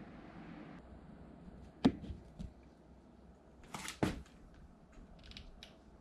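A few sharp knocks and clicks: a loud one about two seconds in, and another about four seconds in, just after a short rustle, with fainter ticks between.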